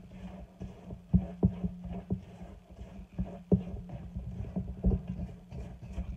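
White plastic spatula stirring and scraping a grainy sugar, melted butter and oil mixture around a stainless steel bowl, with irregular dull knocks against the bowl. The sugar is being mixed in until it dissolves.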